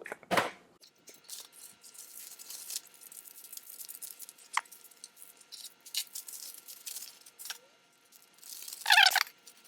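Packaging being unwrapped by hand: intermittent rustling and crinkling with a few sharp clicks, and a louder short rip near the end.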